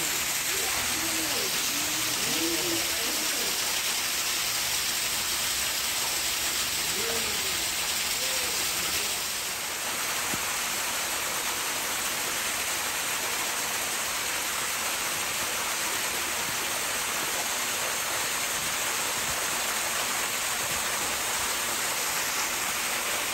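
Steady rushing of flowing water, an even noise that holds at the same level throughout, with faint distant voices in the first few seconds and again about seven seconds in.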